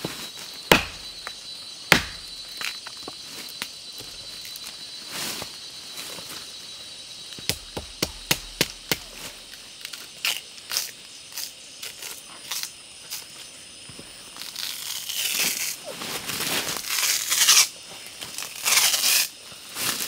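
Scattered sharp clicks and knocks, two of them loud in the first two seconds, then several seconds of rustling near the end, over a steady high insect drone.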